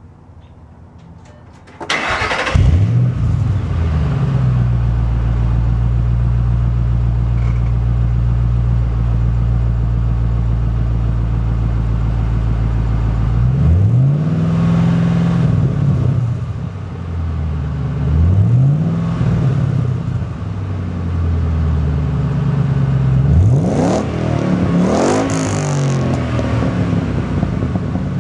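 A 2010 Ford Mustang GT's 4.6-litre V8, supercharged with a Roush M90 and breathing through MBRP mufflers, starts about two seconds in with a flare of revs, then idles with a deep, steady rumble. It is blipped to about 2500–3000 rpm and again briefly, then revved quickly to redline near the end, the loudest rev.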